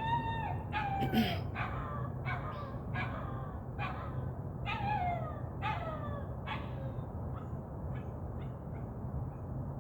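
A puppy yelping and whining over and over, about one short falling cry a second, growing fainter and dying away after about seven seconds. A steady low hum runs underneath.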